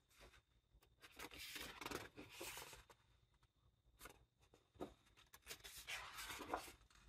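Pages of a large illustrated art book turned by hand, twice: each turn a soft papery swish, with a few light taps of paper and hands between them.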